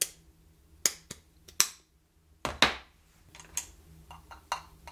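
Sharp clicks and clinks of a machined aluminium housing and steel ball bearing being handled on a workbench: a few separate knocks in the first three seconds, then a run of small quick ticks.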